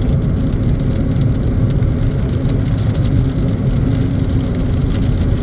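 Steady low rumble of road and engine noise inside a car driving along, with faint scattered ticks of rain hitting the car.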